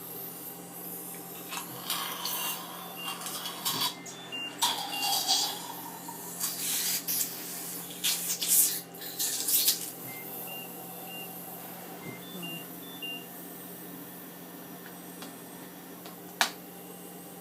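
Airway-clearance equipment (cough assist and phlegm suction) at work clearing phlegm: irregular bursts of hissing air through the first half, over a steady machine hum. Short electronic beeps come in two small clusters, and a single sharp click falls near the end.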